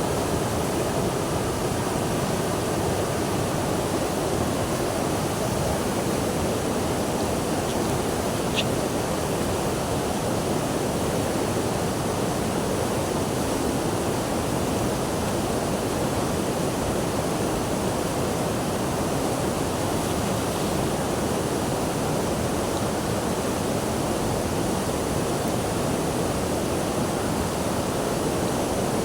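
Steady rushing of running water, an even unbroken rush, with a single brief high chirp about eight or nine seconds in.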